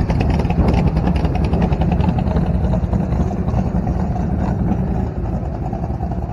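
Hot rod T-bucket's engine rumbling at low speed as it rolls past, growing fainter toward the end.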